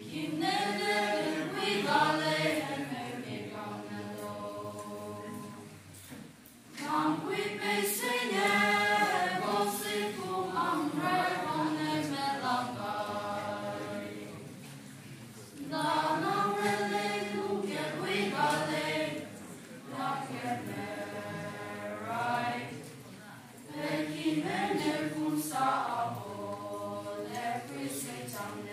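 A choir of school students singing a song together without instruments, in long phrases of about eight seconds with brief pauses between them.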